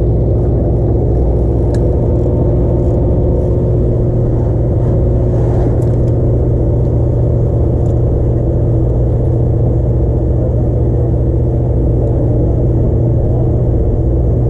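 A sportfishing boat's engine running steadily with a constant low hum, heard on deck.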